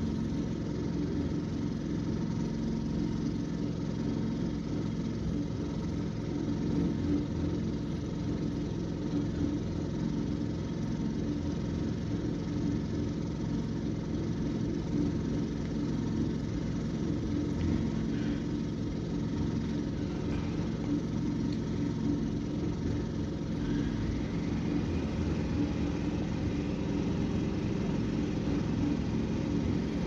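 An engine running steadily at an even pace, heard from inside a car cabin.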